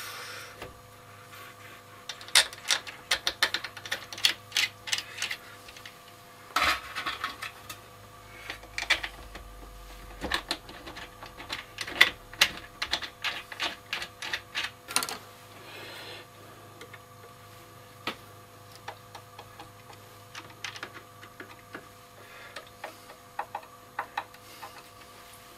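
Screws being driven back into a tape recorder's case with a screwdriver: bursts of quick metallic clicks and ticks, with pauses between screws.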